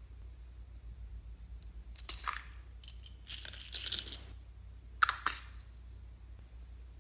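Slime being handled: a few sharp clicks, then about a second of bright crackling pops, then two more sharp clicks.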